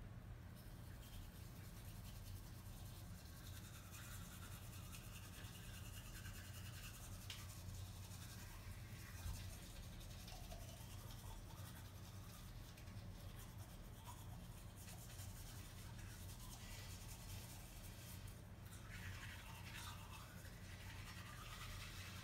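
Two people brushing their teeth with manual toothbrushes: faint, steady scrubbing of bristles on teeth, over a low steady hum.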